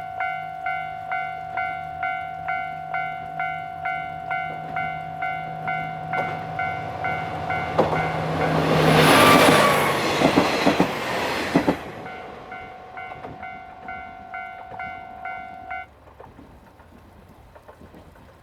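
Level crossing warning bell ringing steadily at about two and a half strikes a second while a KiHa 47 diesel railcar passes. The train is loudest about nine to twelve seconds in, with wheels clattering over the rails. The bell stops near the end.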